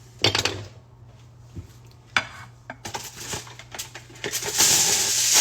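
Kitchen utensils and dishes clinking and knocking in separate strokes while food is prepared, then a steady hiss from about three seconds in that grows louder near the end.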